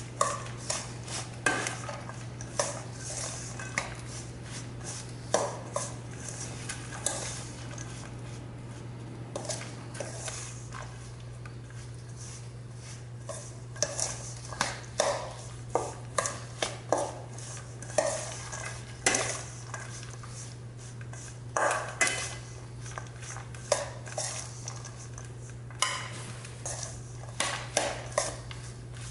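Metal utensil stirring a stiff cauliflower, cornmeal, egg and cheese mixture in a stainless steel mixing bowl, with irregular scrapes and clinks against the bowl. A steady low hum runs underneath.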